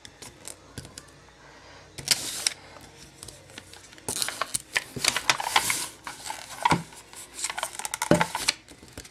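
Tape being pulled off and crinkled on the back of a glass cutting board, with light clicks of handling. It comes in short bouts: about two seconds in, again from about four to six seconds, and near the end.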